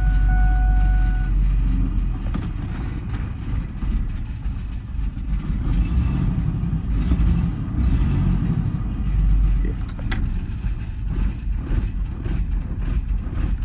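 2000 Ford F-150's 4.2-litre V6 engine running with an uneven low rumble, the truck the owner says runs badly. A steady electronic chime tone sounds for about the first second and a half.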